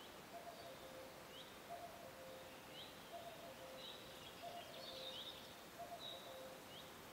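Faint outdoor ambience with birds chirping: short high notes repeated every second or so, with fainter lower notes recurring alongside.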